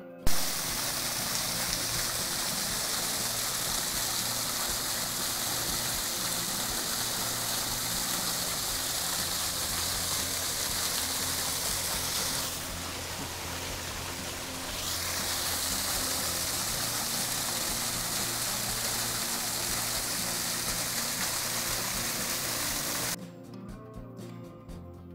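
Small waterfall splashing down a rock face into a pool: a steady rush of water that cuts in suddenly at the start, goes a little softer for a couple of seconds around the middle, and stops abruptly about two seconds before the end. Background music plays underneath throughout.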